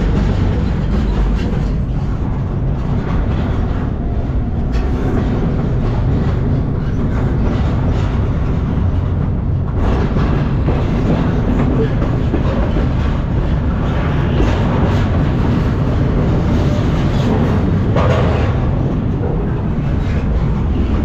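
Freight train running on the rails, heard from aboard a moving car: a loud, steady low rumble with rattling.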